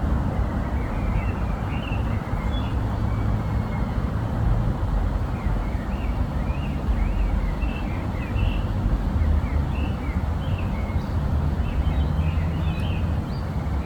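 A steady low rumble with many short, high bird chirps scattered over it throughout.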